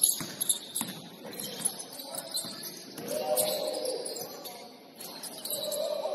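Basketball shoes squeaking on a gym court in short, high chirps during play, with a few sharp thuds near the start and voices murmuring in the hall.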